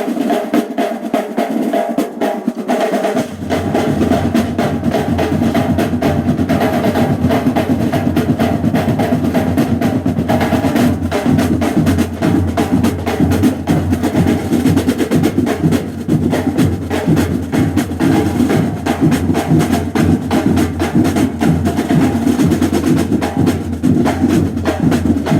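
Marching band drumline playing: snare drums beat fast rolls and rhythms, with bass drums coming in about three seconds in and keeping going under them.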